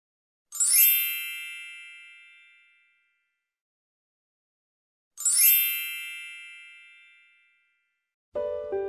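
Two bright metallic chimes about five seconds apart, each struck once and ringing away over about two seconds. Music starts near the end.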